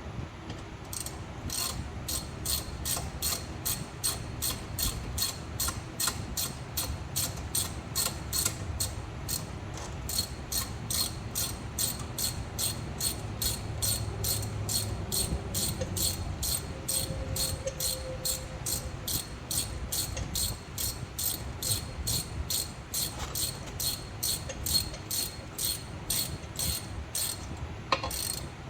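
Hand ratchet clicking steadily, about two to three clicks a second, as a hex-bit socket backs a brake caliper guide pin bolt out of its sleeve.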